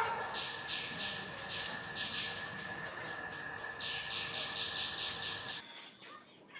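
Background insects chirping in short, high, quickly repeated pulses over a steady high whine; the background thins abruptly about five and a half seconds in.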